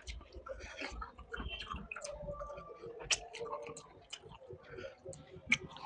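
A person chewing food, with many small irregular wet mouth clicks and smacks.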